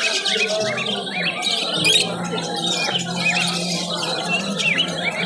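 A crowd of caged birds chirping and squawking at once, a dense overlapping chatter of short high calls, over a low steady hum.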